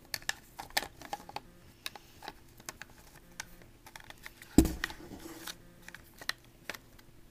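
Small irregular clicks and taps of a battery and its wires being fitted into an airsoft rifle's crane stock tube, with one louder knock about four and a half seconds in, followed by brief rustling.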